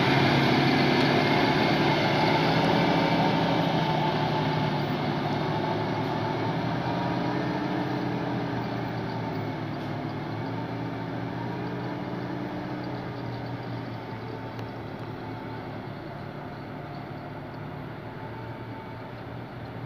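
Diesel truck engine running as the truck pulls away, its sound fading steadily as it drives off into the distance.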